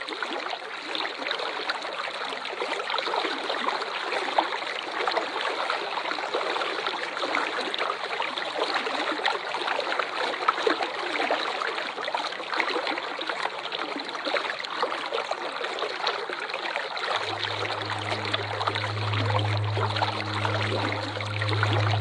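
Waterfall water falling and splashing steadily. A steady low droning tone with a few evenly spaced overtones joins about three quarters of the way through.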